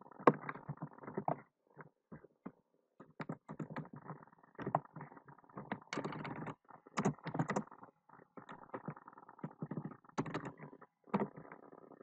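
Typing on a computer keyboard: irregular clusters of keystrokes separated by short pauses as code is copied, pasted and edited.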